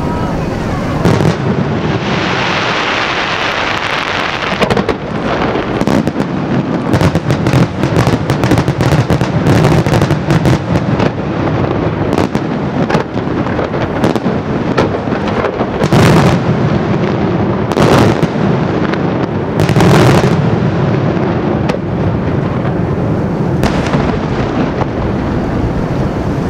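Daytime fireworks display: shells bursting in red, white and green smoke. A hissing rush about two seconds in, then a rapid run of sharp bangs, and three heavier booms a couple of seconds apart about two-thirds of the way through.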